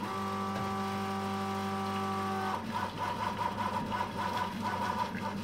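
Pump of a Londinium LR lever espresso machine running for preinfusion set to 4 bar, a steady hum. About two and a half seconds in, the hum turns rougher and wavering as water runs quickly through the already-used puck.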